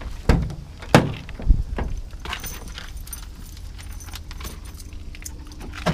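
Volvo truck cab door being opened and handled: three sharp knocks in the first second and a half, then lighter clicks and a metallic jangle like keys as the cab is reached into.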